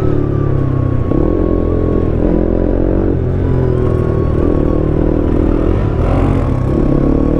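KTM RC 390's single-cylinder engine running while riding, revs rising and falling a few times and climbing steadily near the end.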